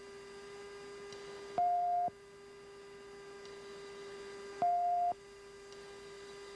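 Electronic tones on the F-16's cockpit audio: a steady low tone with a louder, higher beep about every three seconds. The beep sounds twice here, each about half a second long.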